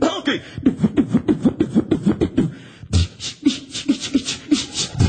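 Male beatboxer performing live into a hand-held microphone, all with the voice. First comes a fast run of short pitched notes that slide downward. About three seconds in there is a deep kick, and he moves into a steady beat of hissing hi-hat sounds over bass blips.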